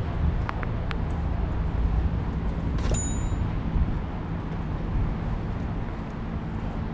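Steady low rumble of city traffic, with one sharp metallic clink that rings briefly about three seconds in.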